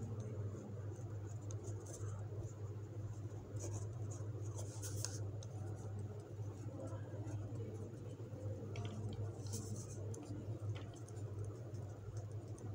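Ballpoint pen writing on lined notebook paper: faint, irregular scratching strokes over a low steady hum.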